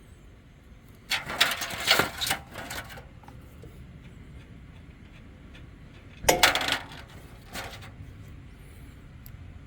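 Socket ratchet clicking in two short runs, about a second in and again past six seconds, as a 15 mm socket works the generator's oil drain plug loose.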